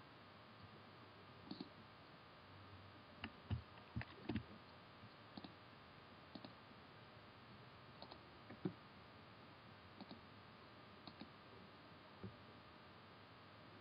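Faint, scattered clicks of a computer mouse, some in quick pairs, over a low steady hiss.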